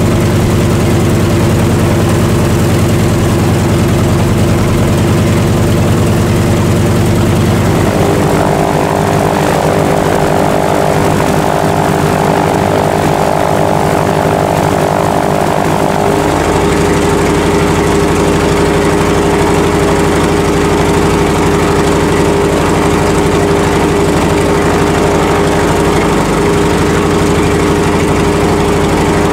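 Lisunov Li-2's Shvetsov ASh-62IR nine-cylinder radial engine running steadily on the ground, with its propeller turning. The tone changes abruptly around eight seconds in and again around sixteen seconds.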